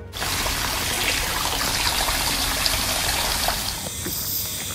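Running water splashing and trickling steadily at a shrine's temizuya hand-washing basin, the water used for ritual hand purification; it eases off near the end.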